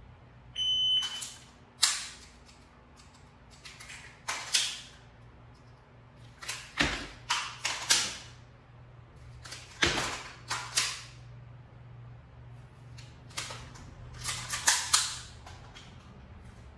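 A short electronic start beep, like a shot timer, then bursts of sharp metallic clicks and clacks from pistol dry-fire and reload drills: trigger snaps and slide and magazine handling. Two of the impacts, about 7 and 10 seconds in, are heavier thuds, consistent with magazines dropping during reloads.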